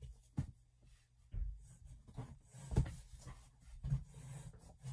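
Rummaging in a box of yarn hanks: a handful of irregular dull thumps and soft rustling and scraping as hanks are pulled out.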